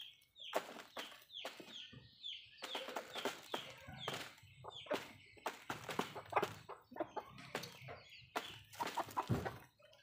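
Backyard chickens clucking, with a run of short falling calls in the first few seconds, over many quick sharp taps of beaks pecking at the concrete ground and the cardboard box.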